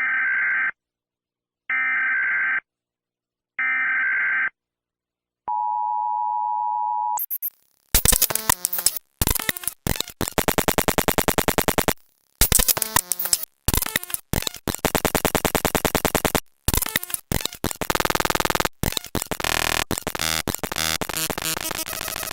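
US Emergency Alert System alarm: three screechy digital data bursts about two seconds apart, then a short steady two-tone attention signal. From about 8 seconds in, the alarm repeats in ever faster, sped-up versions that break into rapid, choppy stuttering with short gaps.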